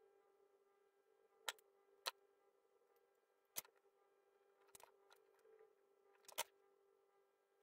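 Near silence: a faint steady hum with about five sharp, faint clicks at irregular spacing, from a soldering iron, wire and small parts being handled on a workbench.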